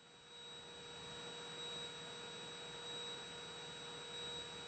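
Faint steady electrical hum with a thin high whine on the aircraft's headset intercom audio line, with no engine noise coming through between transmissions.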